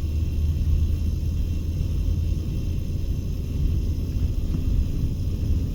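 Steady low rumble of a car driving, engine and tyre noise.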